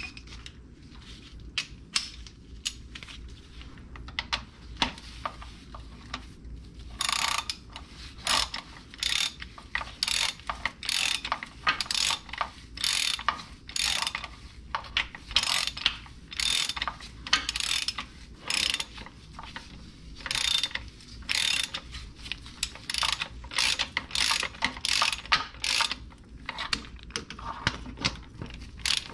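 Hand socket ratchet clicking as a starter mounting bolt is turned in. A few scattered clicks come first, then from about seven seconds in a steady run of short ratcheting strokes, one to two a second.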